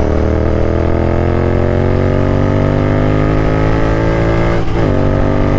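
Royal Enfield Continental GT 650's parallel-twin engine pulling through a gear while riding, its pitch rising slowly. About four and a half seconds in, an upshift drops the pitch, and it starts to climb again.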